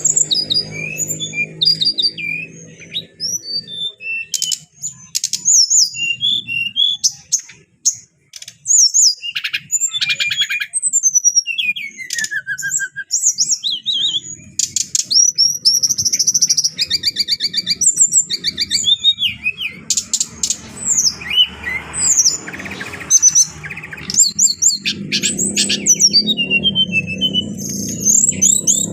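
Brown-chested jungle flycatcher singing: a long, varied run of clear whistled notes, slurred phrases, quick trills and sharp chips.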